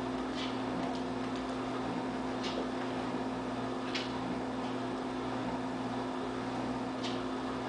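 A steady low electrical hum, with four brief, faint, high rustling ticks spread through it.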